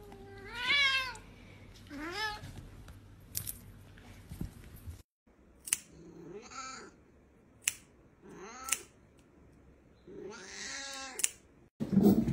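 Domestic cats meowing: five drawn-out meows, the last three from a ginger cat having its claws trimmed, with sharp clicks of the nail clippers between them. A sudden louder noise starts just before the end.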